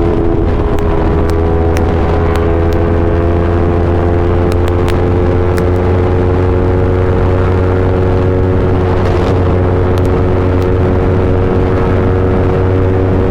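Yamaha R3's 321 cc parallel-twin engine through an Akrapovic full exhaust system, running at a steady engine speed, its pitch drifting slightly up and then easing back down. A few faint ticks come through over the exhaust note.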